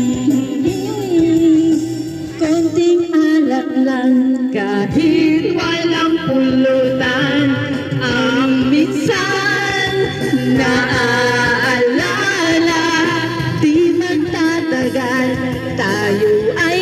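A woman singing karaoke into a handheld microphone over a videoke backing track, her voice wavering with vibrato.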